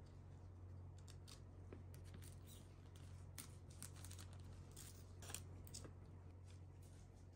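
Faint crinkling and clicking of paper stickers and clear plastic sleeves being handled by gloved hands: scattered small crisp sounds over a low steady hum.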